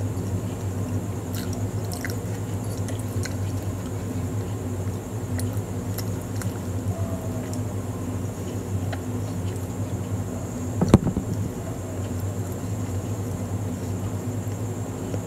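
Close mouth sounds of biting and chewing soft burger bun, with small scattered clicks over a steady background hum; one sharp click stands out about eleven seconds in.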